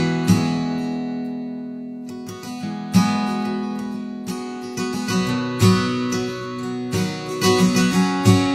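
Acoustic guitar music: strummed chords ringing out, with the strums coming faster near the end.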